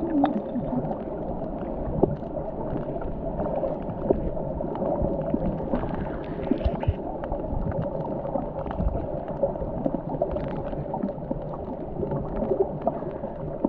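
Muffled underwater sound heard through an action camera's waterproof housing: a steady low rush of water with scattered crackles and clicks.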